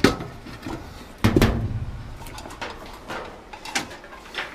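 Things being handled and set down: a sharp knock at the start, a heavier thud about a second in, then a run of lighter clicks and knocks.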